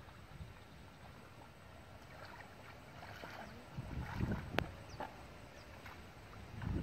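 Boots wading through shallow, muddy paddy water: low sloshing splashes as the legs pull through, strongest about four seconds in and again near the end, with one sharp click between them.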